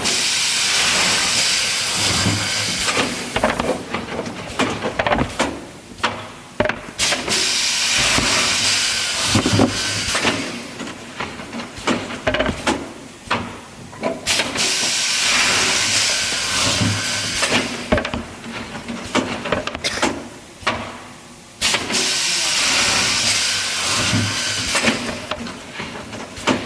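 Five-line multi-spindle wood drilling machine with automatic feed running through its cycles: a few seconds of hissing noise about every seven seconds, with knocks and clicks in between.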